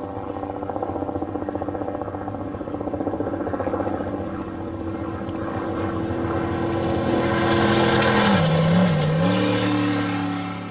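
Race vehicle's engine running with a fast, rough pulse, growing louder over several seconds; late on its pitch dips briefly and then rises again.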